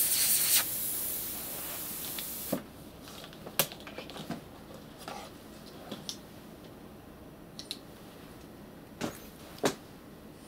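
A pen-type atmospheric-pressure plasma nozzle hissing as its jet is played over a glass cover slip. The hiss drops after about half a second and cuts off about two and a half seconds in. A few light clicks and taps of handling follow.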